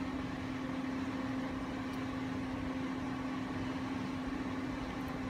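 Fan running with a steady hum and one constant low tone.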